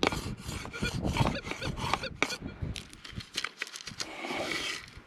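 Dirt and small gravel scraping and rattling in a prospecting scoop as it is shaken and tipped, with a few short metal-detector tones as the scoop passes over the coil, a sign that the target is in the scoop.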